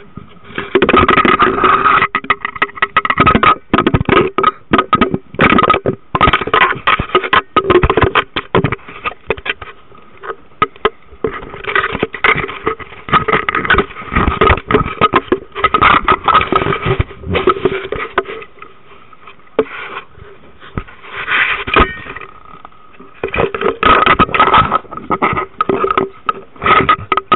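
Handling noise from a waterproof camera being held and moved about: dense, irregular rubbing, scraping and knocking against the camera body, over a faint steady hum.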